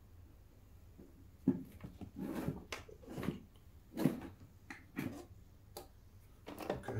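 Hands handling a wireless charger stand and its USB-C cable: a series of separate clicks and knocks with short rustles, starting about a second and a half in and coming every half second to a second.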